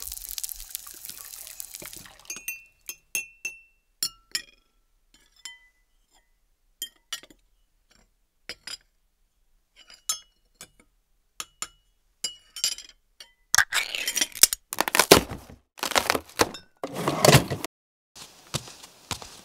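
Sparse, short glassy clinks, some ringing briefly at a clear pitch, after a rushing noise fades out in the first two seconds. Past the middle come several louder, longer bursts of rushing noise, the loudest sounds here.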